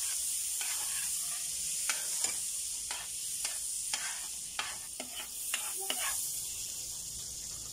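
Melted butter sizzling in a metal wok while a metal ladle stirs it: a steady high sizzle with irregular scrapes and clinks of the ladle against the pan, most frequent around the middle.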